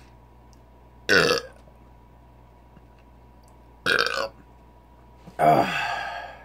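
A man burping loudly three times, each burp short, the third the longest and falling in pitch.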